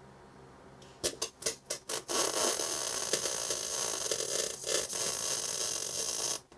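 MIG welding arc with solid wire laying a quarter-inch tack weld on steel pipe. It opens with a few short, stuttering arc starts about a second in, then burns steadily for about four seconds and cuts off abruptly.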